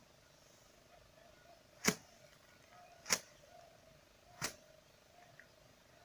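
Three sharp knocks, a little over a second apart, over a faint steady hum.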